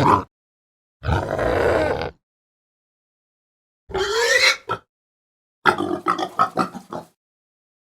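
A string of separate animal calls with dead silence between them: a long, rough call about a second in, a shorter call rising in pitch about four seconds in, then a quick run of short grunts near the end.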